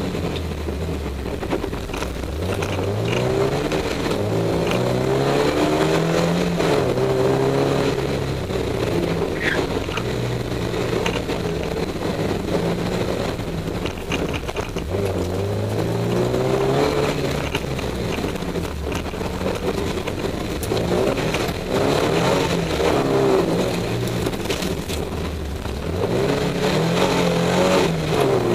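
Rally sprint car's engine heard from inside the cockpit, pulling hard through the gears: the pitch climbs in repeated sweeps and drops back at each shift or lift.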